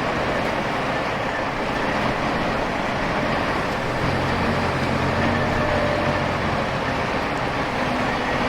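Tractor engine running steadily while working in mud, its low engine note growing stronger about four seconds in.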